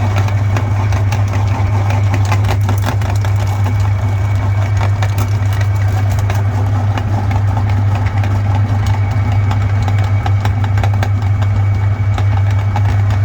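Electric meat grinder running with a steady low motor hum, its auger crushing chocolate Santa figures with irregular crackling clicks.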